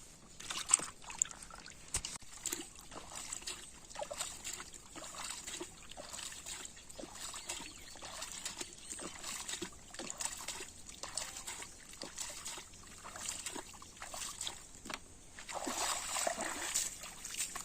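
Water splashing and sloshing in many small irregular splashes, with a louder stretch of splashing near the end.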